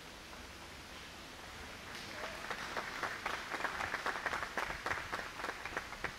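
A small crowd of guests applauding: a patter of many separate hand claps that starts about two seconds in and thins out near the end.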